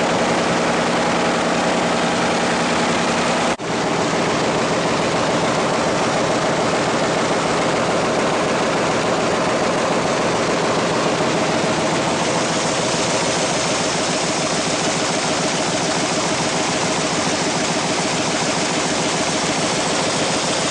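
Winkler+Dunnebier 527 GSV.38 envelope folding machine running, a steady, loud mechanical din with a fast fine rattle from its rollers and drives. The sound drops out for a moment about three and a half seconds in.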